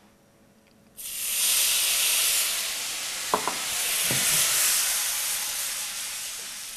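Lemon juice hitting hot foaming curried butter in a frying pan: a sudden loud sizzle about a second in that slowly dies down. Two light metallic clinks come midway.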